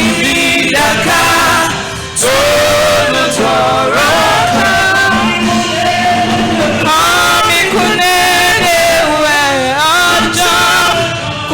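Gospel worship singing: a male lead voice sings a slow, drawn-out melody with other voices joining, over steady instrumental backing.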